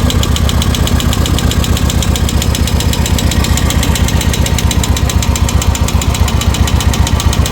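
Royal Enfield Classic single-cylinder engine idling with an even, fast tik-tik ticking on every beat. The ticking is the sign of a faulty hydraulic tappet, which the mechanic takes for the main problem, with heavy valve play as well.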